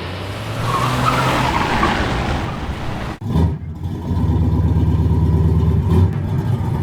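Car engine running, with tyre-squeal noise in the first seconds. There is a short break about three seconds in, then a loud, steady low engine note.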